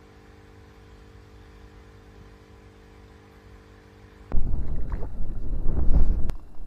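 A faint steady hum with a few held tones. About four seconds in it gives way to loud wind buffeting the microphone and water splashing as a hooked fish swirls at the surface, with a sharp click near the end.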